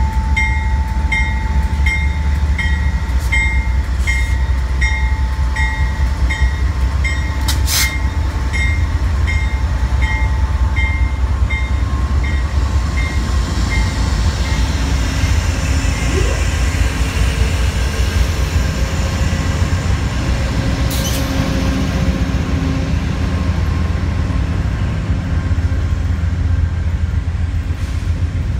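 Amtrak Genesis diesel locomotives pulling a long-distance passenger train out of a station, engines running with a steady low rumble as the locomotives and then the passenger cars roll slowly past. A bell rings about twice a second for roughly the first ten seconds, and there is one sharp click about eight seconds in.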